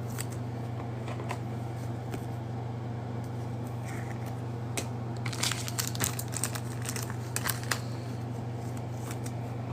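Plastic wrapper of a trading-card pack crinkling in short, crackly bursts as it is opened and handled, most of them in the second half, over a steady low hum.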